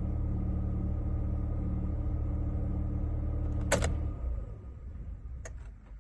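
Chevy HHR engine idling steadily, then a sharp click at about four seconds in as it is switched off and runs down to a stop; a second, lighter click comes near the end.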